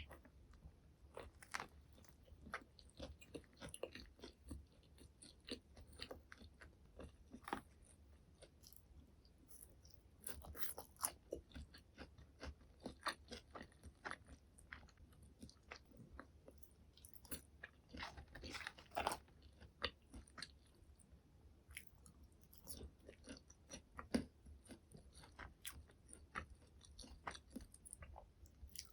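Close-miked eating of McDonald's burger and McNuggets: moist chewing with irregular crunchy bites and crackles, coming in clusters with short pauses.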